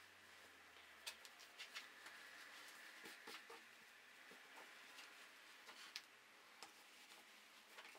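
Near silence with a few faint, irregular light clicks and taps: hands taking pins from a pincushion and pinning a patch onto denim.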